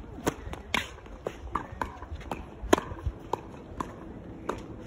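Tennis rally on a hard court: a serve, then tennis balls struck by rackets and bouncing off the court, with quick footsteps between the shots. It comes across as a string of sharp pops, the loudest a little past the middle.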